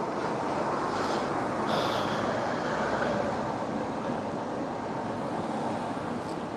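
Steady rushing background noise with no distinct events: shop ambience picked up by the presenter's microphone.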